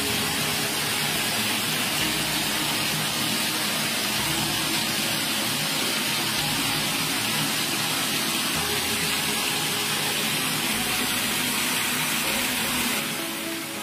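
Bath mixer tap running water into a bathtub as it fills, a steady rush of water.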